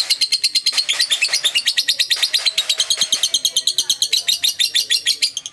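Birds chirping: a rapid, even stream of high-pitched chirps, about ten a second.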